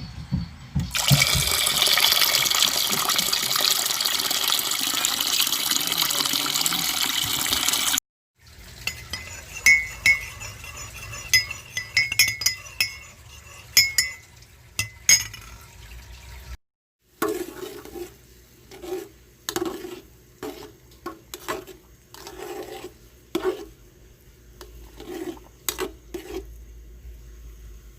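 A run of separate household sound effects: a loud, steady rush of running water for about seven seconds that stops abruptly, then light clinks of glass with faint ringing, then a string of short, irregular knocks and clatters.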